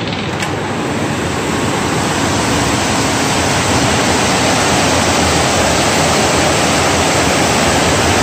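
Heavy rain pouring down in a loud, steady rush, with water spilling off a roof edge. A door latch clicks about half a second in.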